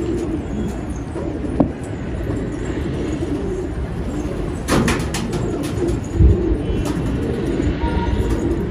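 Domestic pigeons cooing continuously in a low, wavering murmur. A short clatter comes about five seconds in, and a low thump about a second later.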